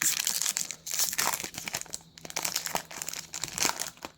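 Foil wrapper of a Pokémon trading-card booster pack crinkling and tearing as it is opened by hand, in irregular crackly spurts with a short pause about two seconds in.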